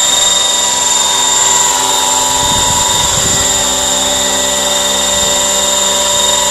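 Radio-controlled scale helicopter with a Funkey AS350 Écureuil fuselage hovering low: a steady high-pitched whine from its drivetrain over the rotor noise, with a brief low rumble about two and a half seconds in.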